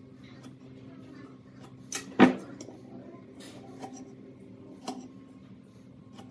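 Light clicks and taps of a steel rule and pencil against a pine beam as lines are marked, with one louder knock about two seconds in, over a steady low hum.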